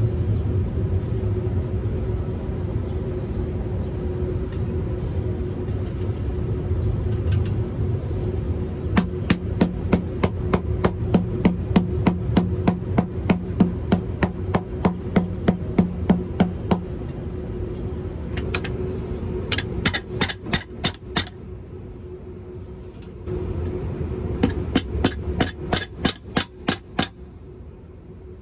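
Claw hammer striking the studded rubber Dainite sole of a leather boot, in several runs of quick, evenly spaced blows at about three or four a second, with short pauses between runs.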